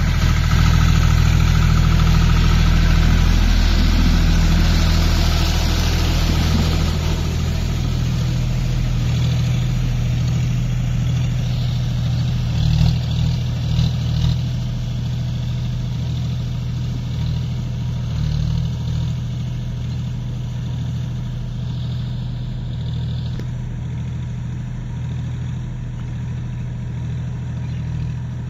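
John Deere four-wheel-drive tractor's diesel engine running steadily under load as it drives a 6.5-foot, 72-blade rotavator through flooded mud. The sound fades gradually as the tractor moves away.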